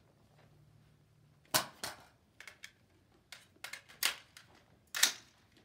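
Rifle magazine change after the rifle has run empty: a string of sharp metallic clicks and clacks as the empty magazine comes out and a fresh one is seated. The loudest clack is about a second and a half in, and another comes near the end.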